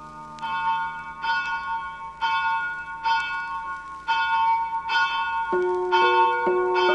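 Bell-like chimes playing a slow tune, one struck note about every second with bright ringing overtones; lower bell notes join in after about five and a half seconds.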